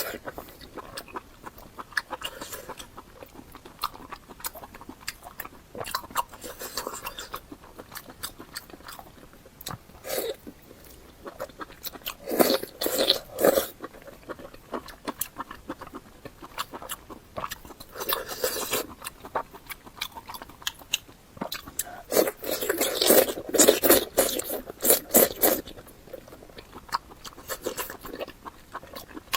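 Close-miked chewing and biting: wet mouth sounds and crunches come in bursts, loudest in runs around the middle and again past two-thirds of the way, with quieter chewing between.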